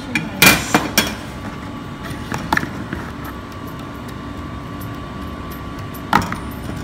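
A steady mechanical hum, carrying two constant tones, with a few sharp clattering knocks: a cluster about half a second to a second in, one in the middle and two near the end.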